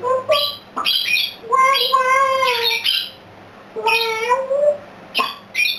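A parrot squawking: short harsh squawks, with two longer drawn-out calls that bend in pitch, one starting about a second and a half in and one about four seconds in.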